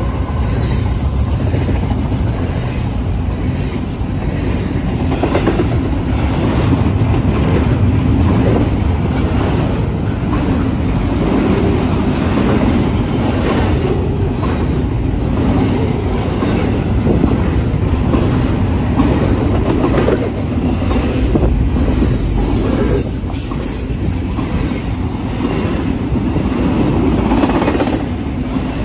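Union Pacific double-stack intermodal freight cars rolling past at speed: a steady rumble of steel wheels on rail with a quick clatter of wheel clicks over the track. A high wheel squeal comes in about two-thirds of the way through.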